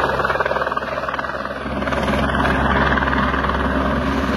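Helicopter coming in low to land, its rotor making a fast, steady chop over a continuous low hum that grows slightly louder in the second half.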